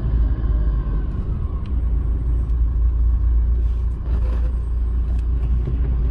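Steady low rumble of a car driving on a wet street, heard from inside the cabin.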